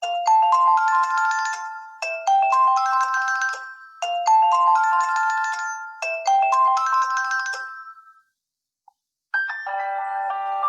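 A BQ-5007L Iron smartphone's preset ringtone: a short chiming phrase of rising notes, played four times about every two seconds. After a short pause, a different ringtone begins near the end.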